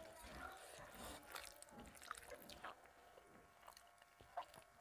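Faint wet eating sounds: fingers squishing rice mixed with dal on a plate, and quiet chewing, with scattered small clicks and one sharper click about four seconds in.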